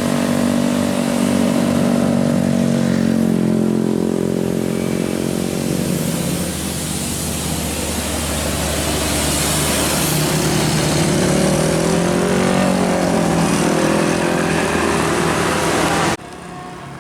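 A tour bus's basuri horn, a multi-tone horn, sounds held notes together for about six seconds, then changing notes over the rumble and road noise of the passing bus. The sound cuts off suddenly near the end.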